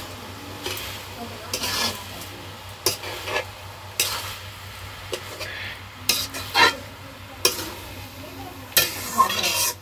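Flat metal spatula scraping and stirring rice in a steel karai, in irregular strokes about once a second, over a steady frying sizzle.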